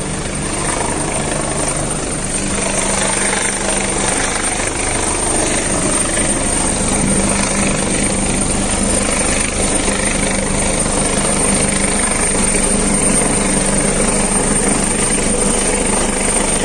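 Helicopter running: a steady, loud noise with a low hum and a thin high whine held throughout, cutting off suddenly at the end.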